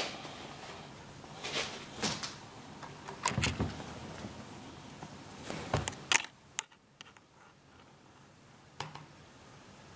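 Scattered knocks and rustles of a handheld camera being carried back across the room, several in the first six seconds and one more click near the end, over a faint room hiss that drops lower after about seven seconds.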